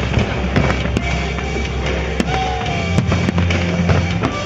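Fireworks popping and crackling, sharp cracks coming several times a second, over the show's accompanying music with held bass notes. A brief falling tone comes about two seconds in.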